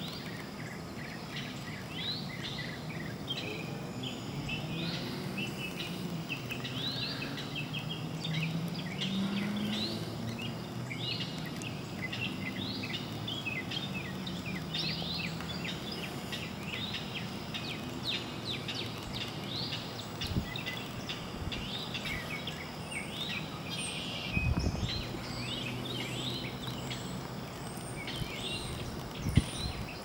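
A dense outdoor chorus of short, high chirping calls repeating rapidly. A low drone sits underneath, rising and falling about eight to ten seconds in. There are two dull thumps near the end.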